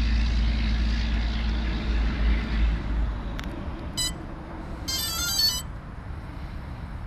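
A low steady rumble, then a faint click and a short series of high electronic beeps from about four to five and a half seconds in, the last of them a quick run of changing pitches.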